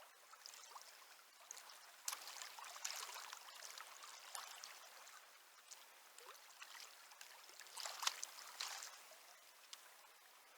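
Shallow river water trickling and splashing, with a few short louder splashes about two to three seconds in and again near eight seconds.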